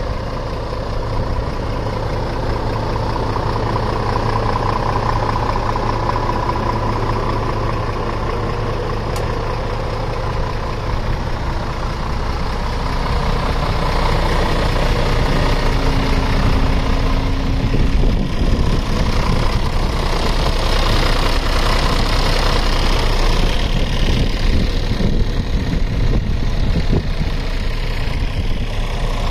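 Scania R 450 truck's 13-litre inline-six diesel engine idling steadily, a little louder from about halfway through.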